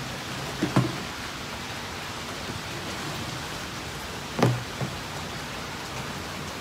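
Steady rain falling, heard as an even hiss, with a few short thumps about a second in and twice more about four and a half seconds in.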